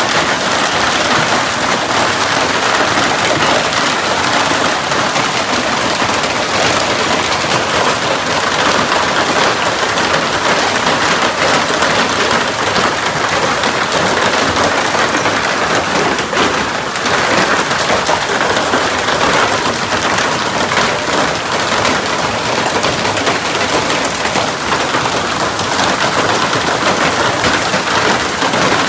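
Heavy hail coming down hard: a dense, steady clatter of countless hailstones striking the ground, a pickup truck and plastic wheelie bins.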